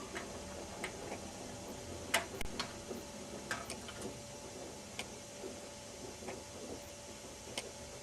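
Light clicks and taps from test probes being handled against a TV's LED backlight strips, scattered a few seconds apart, the sharpest about two seconds in, over a faint steady hum.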